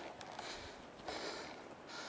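Footsteps on a dry dirt trail, a soft scuffing crunch roughly every half second at walking pace.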